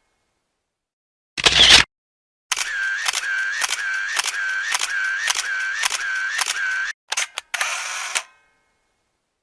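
Camera shutter clicks. A single shutter release comes about a second and a half in, then a rapid burst of about a dozen shutter clicks at roughly three a second for some four seconds. Two quick clicks and one last shutter release follow near the end.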